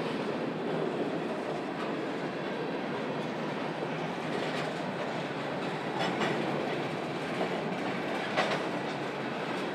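Freight train cars rolling past, with steady wheel-on-rail noise and a few sharp clicks from the wheels over rail joints, the loudest near the end.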